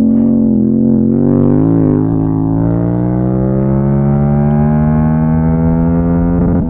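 Motorcycle engine pulling under throttle. Its pitch wavers for the first couple of seconds, then climbs slowly and steadily, and near the end it drops abruptly as the rider shifts up a gear.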